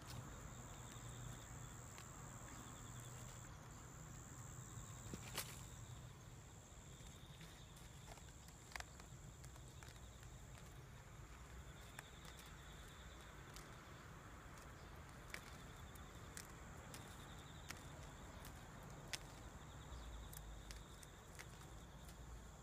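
Near silence: faint outdoor ambience with a thin, steady high tone and a few scattered light clicks.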